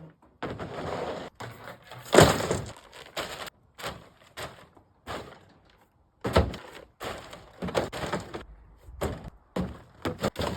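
Old boards and pallet wood being tossed down and shifted, a run of irregular wooden clatters and thunks, the loudest about two seconds in.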